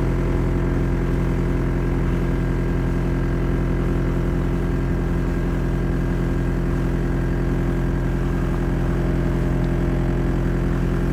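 A sailboat's auxiliary engine running at low speed as the boat motors through a harbour, a constant hum that holds one pitch throughout.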